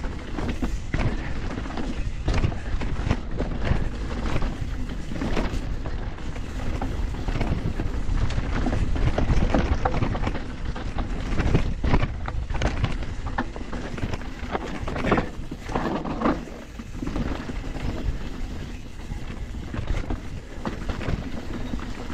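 YT Decoy carbon e-mountain bike ridden along a dirt forest trail: tyres rolling over the ground with frequent rattles and knocks from the bike. A heavy rumble of wind on the camera microphone runs underneath.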